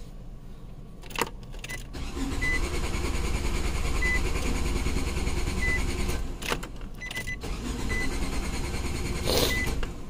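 Starter cranking the 2014 Nissan NV200's 2.0 L four-cylinder engine for several seconds without it catching, with a short break about six seconds in; a short electronic beep repeats over it. This is the hot-soak crank-no-start that goes with the P0340 camshaft position sensor circuit code.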